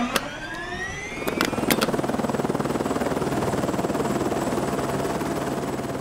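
DJI quadcopter drone's propeller motors spinning up, a whine rising in pitch, settling into a steady buzz as the drone lifts off. A few sharp clicks fall in the first two seconds.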